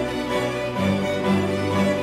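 Soundtrack music with sustained pitched notes, and a change in the low notes about a second in.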